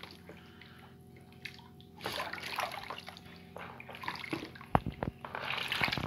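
Raw chicken pieces being swished by hand in a plastic bowl of hot water as they are washed, the water sloshing in bursts from about two seconds in. A couple of sharp knocks come near the end.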